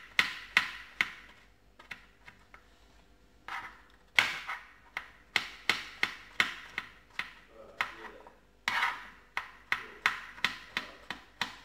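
Knife slicing button mushrooms thinly on a plastic cutting board: runs of sharp knocks of the blade meeting the board, several a second, with two brief pauses.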